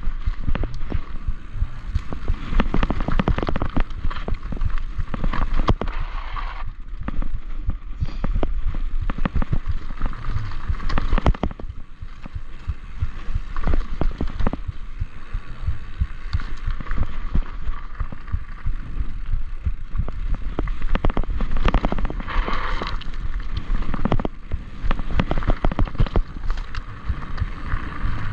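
Enduro mountain bike running fast down a rough dirt and gravel singletrack: a continuous irregular clatter and knocking of the bike over stones and bumps, with the tyres on loose gravel and a steady low wind rumble on the microphone.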